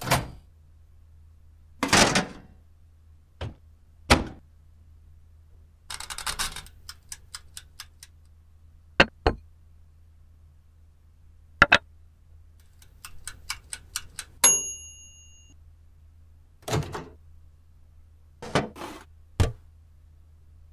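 Kitchen handling sounds: a sharp clunk as a toaster oven door is opened, hard knocks of a wooden cutting board and a metal baking tray being set down and handled, and two runs of quick clicks. About halfway through, one high tone rings for about a second.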